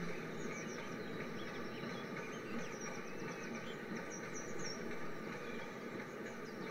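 Steady rolling noise of an N gauge model train of hopper wagons running on the track, with short high bird-like chirps over it, most of them about four to five seconds in.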